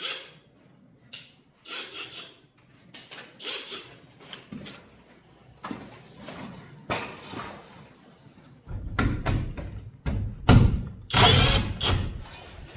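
Scattered clicks and knocks of handling, then in the last four seconds several loud bursts of an impact wrench running, backing out the 11 mm bolts of a garage door roller bracket.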